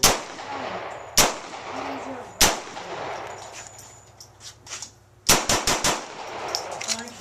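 Gunshots from a firearm, each with a short ringing echo. Three single shots come about a second and a quarter apart, then a rapid string of about five shots fired in well under a second, a little past the middle.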